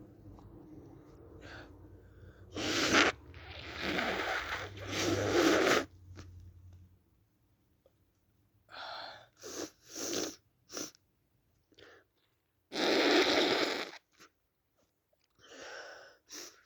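A person with a cold sneezing several times, with short breathy gasps and snorts between. The sneezes are deliberately induced. The loudest come in a cluster from about three to six seconds in, and again about thirteen seconds in.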